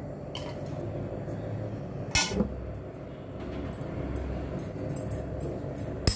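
A steel spoon clinking and scraping against a stainless steel bowl as the poha is spooned in, with a sharp clink about two seconds in and another at the very end, over a steady low hum.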